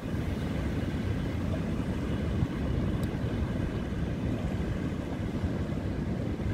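Wind buffeting the microphone in a steady low rumble, with the wash of surf behind it.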